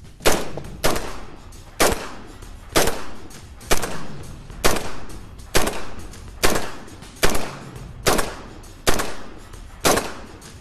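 Semi-automatic rifle fire from an HK MR556A1 upper on a BCM mil-spec lower in 5.56 NATO: about a dozen single shots, roughly one a second, each trailing off over about half a second. The converted rifle cycles every round without a stoppage.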